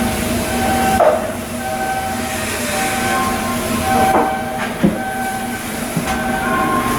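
A tone signal sounding on and off, stepping between two or three pitches in a repeating pattern, over steady machinery noise, with a couple of sharp knocks.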